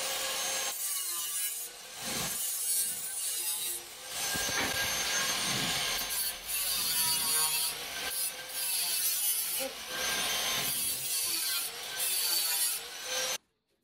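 Angle grinder with a cutting disc cutting through a painted metal square tube, the disc's whine rising and falling in pitch as it bites in and eases off over several short passes. It cuts off abruptly near the end.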